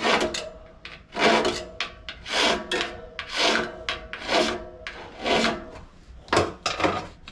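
Round file rasping in the freshly drilled valve-stem hole of an aluminum bicycle rim, taking off the burrs: about eight strokes, roughly one a second.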